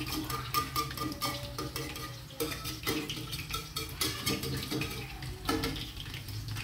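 Metal spatula scraping and clinking against a stainless steel wok as food fries in oil. Frequent short clicks run over a steady sizzle.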